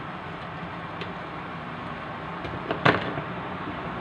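Glass pot lid set down onto a wide pan of simmering stew: a light tap and then a sharp clack of the lid's rim on the pan about three seconds in. Before it, a few faint taps of a wooden spatula against the pan over a steady hiss.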